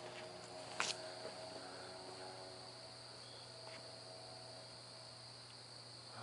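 Night insects trilling steadily at one high, continuous pitch, with a single sharp click about a second in.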